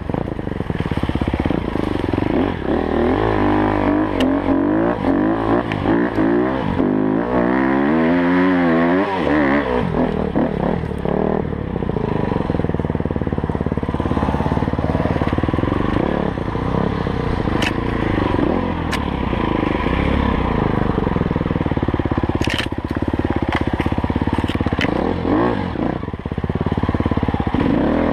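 Enduro dirt bike engine ridden hard on a rough forest trail, its revs rising and falling constantly with throttle and gear changes. A few sharp clicks and knocks stand out in the second half.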